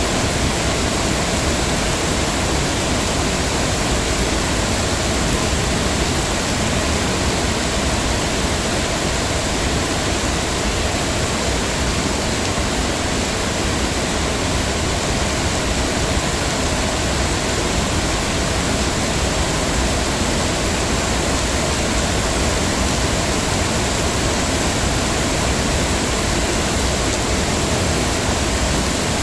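Heavy rain falling steadily, an even unbroken hiss of rainfall with no single drops standing out.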